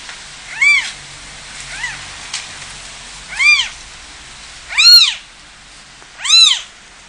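Orphaned newborn kittens mewing: five high cries about a second and a half apart, each rising and then falling in pitch, the last three the loudest.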